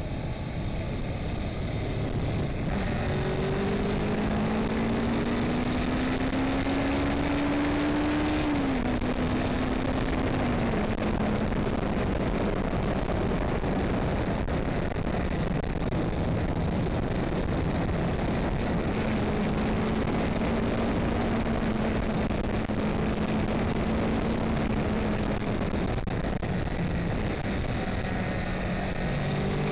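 BMW i3 electric car driving, with steady tyre and road noise and the electric motor's whine rising in pitch for several seconds as the car accelerates, then dropping and holding a steady tone as it cruises.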